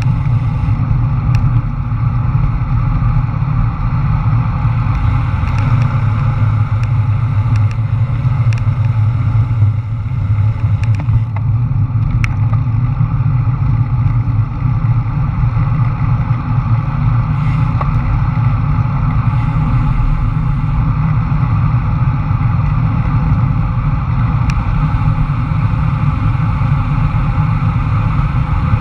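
Wind buffeting the microphone of a handlebar-mounted action camera on a road bike at descending speed, a loud steady low rush with a few faint ticks.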